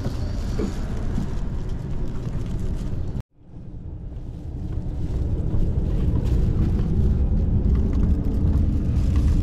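Low rumble inside a train carriage, with a plastic bag rustling. The sound cuts out abruptly about three seconds in, then the rumble swells back up and holds.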